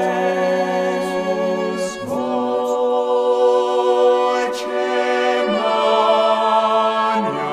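Choir singing a cappella in slow, long-held chords that change about two seconds in and again about five and a half seconds in.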